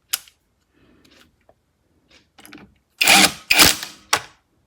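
SakerPlus cordless brushless impact wrench run in three short bursts about three seconds in, after a single sharp click near the start.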